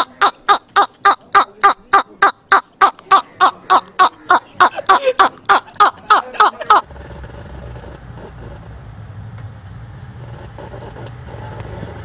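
A man laughing loudly in a fast, even run of 'ha' bursts, three or four a second, which cuts off suddenly about seven seconds in. A steady low vehicle rumble is left behind it.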